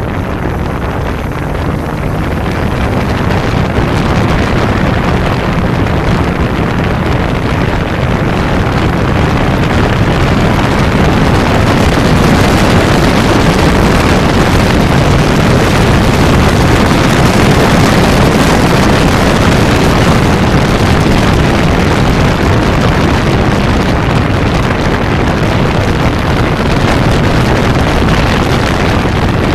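1992 Kawasaki Zephyr 550's air-cooled inline-four engine running as the motorcycle rides along, mixed with heavy wind rush on the bike-mounted microphone. The noise grows louder over the first few seconds, then holds steady.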